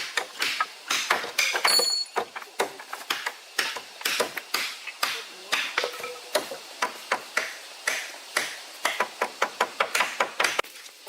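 Quick, irregular strikes of a hand tool on wood, several a second, as in chopping or hammering timber. A brief metallic ping comes about two seconds in.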